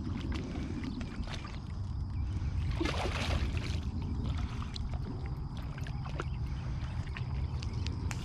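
Water splashing and sloshing close to the microphone, with one bigger splash about three seconds in and scattered small clicks, over a steady low rumble.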